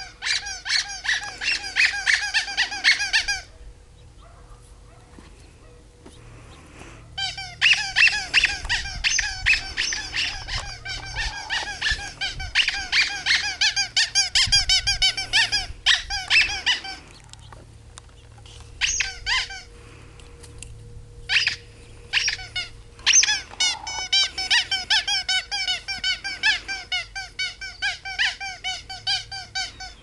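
A bicycle horn honked over and over in quick runs of several seconds, about three or four honks a second, with pauses between the runs.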